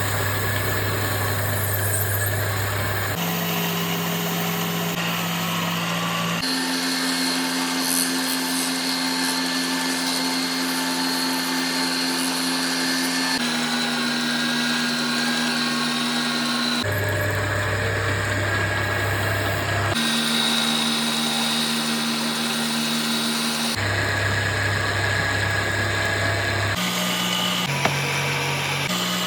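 Electric power tools running steadily while wood is worked, a motor hum and whine whose pitch jumps to a new steady note every few seconds.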